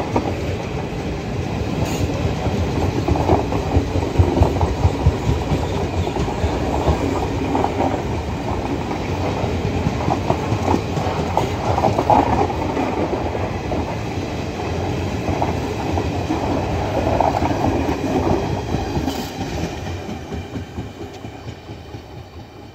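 ICF passenger coaches of an express train rolling past close by, their wheels clattering over the rail joints, with louder knocks every few seconds. The sound fades away near the end.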